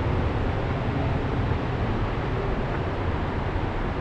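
Steady rushing of a shallow jungle river, an even noise with a strong low rumble.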